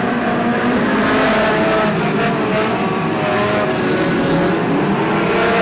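Several BriSCA F2 stock car engines running together as a pack of cars races through a bend, their overlapping notes rising and falling as the drivers lift off and accelerate.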